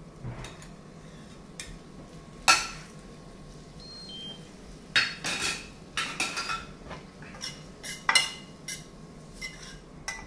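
Metal tongs and a small ladle clinking and scraping against stainless steel pans while pasta is served. The clinks are scattered: the sharpest comes about two and a half seconds in, several come close together around the middle, and another comes near the end.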